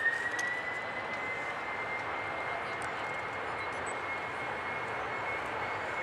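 Boeing 747-400 jet engines running at low thrust as the airliner taxis: a steady whine that rises slightly in pitch in the first second and then holds, over a broad rushing roar.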